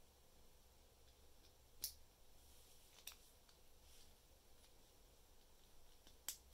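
Hard plastic Lego Technic parts clicking as they are pressed and snapped together by hand: three short sharp clicks, about two seconds in, about three seconds in and near the end, with a few fainter ticks between.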